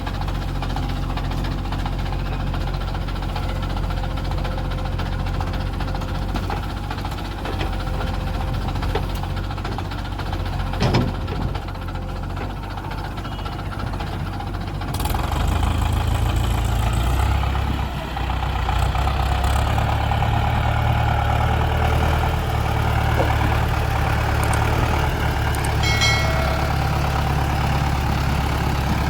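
Diesel engines of a backhoe loader and tractors running steadily, with a single sharp knock partway through; about halfway through the engine sound grows louder as an engine works harder.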